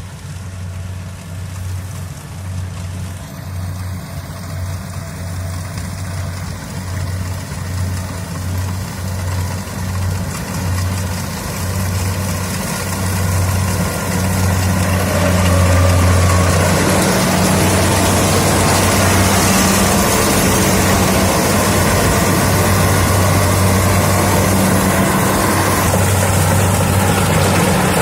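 Kubota DC70 combine harvester's diesel engine running with a deep steady hum, getting louder over the first half and then holding steady and loud with a fuller rush of machinery noise.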